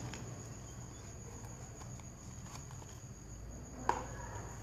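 Faint handling sounds of a Boya BY-M1 lavalier microphone's long cable being gathered by hand, light scattered clicks with one sharper click about four seconds in, over a steady high-pitched background tone.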